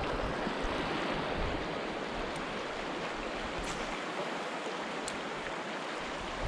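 Flowing river water making a steady rush, with a few faint high ticks.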